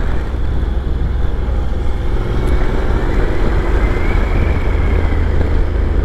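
Honda NC750 motorcycle's parallel-twin engine running at a steady cruise on the open road, mixed with a constant low rumble of wind and road noise.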